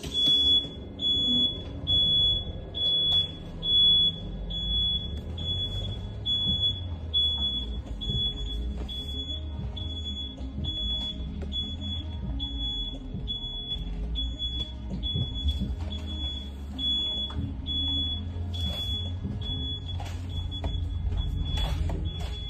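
A Lion electric school bus's reverse warning beeper sounding a single high-pitched beep over and over at an even rate while the bus backs up, over the low hum of the bus. A few louder low pulses come in the first four seconds.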